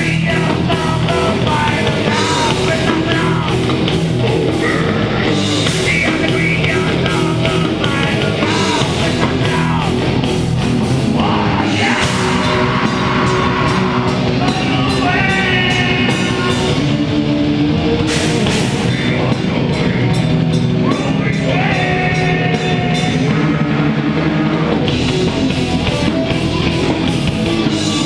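Live rock band playing heavy metal: electric guitars, bass and drum kit, with a vocalist singing into a microphone.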